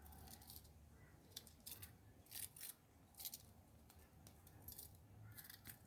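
Faint metallic clicks and short scrapes of a Victorinox Hiker Swiss Army knife's slip-joint tools being folded and opened, a few scattered snaps and rasps, the clearest around the middle.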